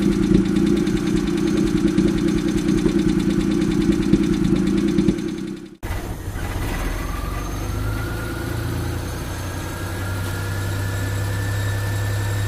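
Suzuki F6A three-cylinder engine idling, first before its refresh with a loud, uneven note. After a sudden cut about six seconds in, the same engine idles after the refresh with a steadier, deeper note, while a faint whine rises slowly in pitch.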